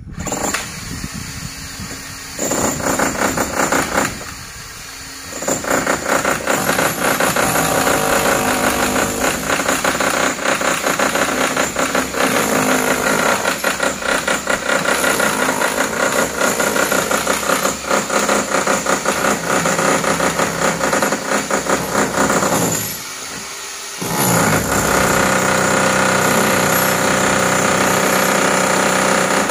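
Handheld demolition hammer rapidly chiselling into a concrete roof parapet, with a motor whine under the blows; it stops briefly twice.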